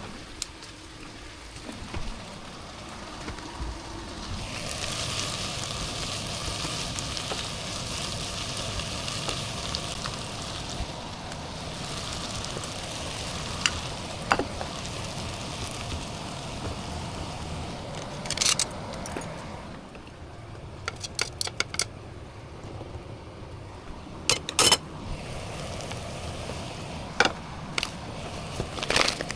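Food sizzling steadily in a hot frying pan, with sharp clicks and taps of a cooking utensil against the pan from about halfway through, several in quick clusters near the end.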